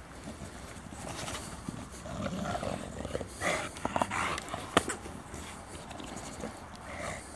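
Two English bulldogs playing together and making dog sounds, which come thickest between about two and five seconds in, with one sharp, loud sound near five seconds.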